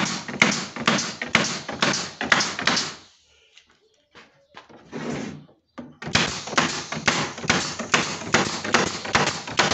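Pneumatic pin nailer firing pins into cedrinho lining boards in quick succession, about two shots a second. The shots stop about three seconds in and start again around six seconds in.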